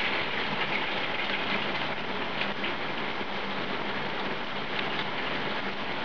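Steady hiss of water spraying from the nozzles of a Peerless 2-in-1 handheld shower head.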